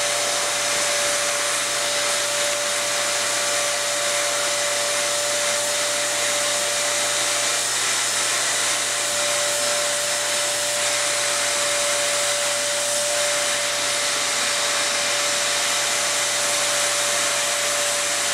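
Dyson canister vacuum cleaner running steadily, with a single steady whine over the rushing hiss of air as the hose nozzle is drawn over a dog's coat.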